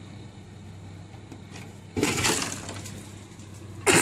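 Two sudden crashing noises about two seconds apart, the first fading over about a second, over a low steady hum.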